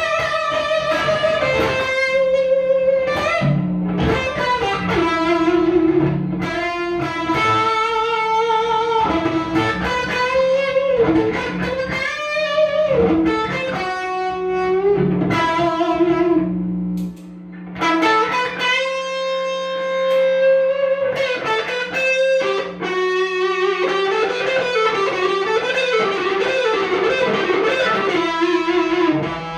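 Electric guitar playing a lead melody: sustained single notes with string bends and vibrato, with a brief pause about 17 seconds in.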